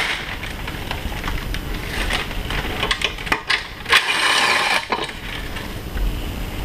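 Cordless drill with a socket adapter runs for about a second a little past the middle, spinning out a bolt from the drum sander's base. Around it are clanks and knocks of metal and wood being handled.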